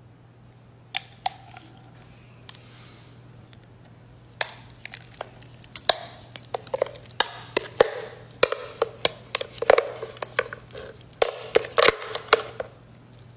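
Metal spoon clicking and scraping against a plastic blender jar while thick frozen smoothie is scooped out into a bowl. There are a few scattered clicks at first, then many quick ones from about four seconds in, over a steady low hum.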